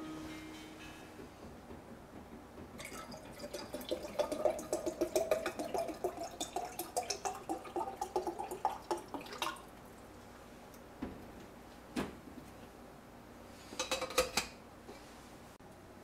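Water glugging and splashing as it is poured from a plastic drinking-water bottle into an enamel coffee pot, for about seven seconds, the pitch of the pour rising a little as the pot fills. A couple of single knocks and a short clatter follow near the end.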